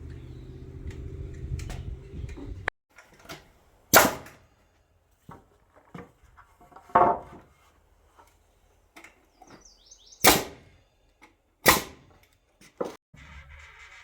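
Hammer blows knocking apart wood framing during demolition: about five loud, sharp knocks one to three seconds apart, with lighter knocks between them. They follow a low steady hum that stops abruptly about three seconds in.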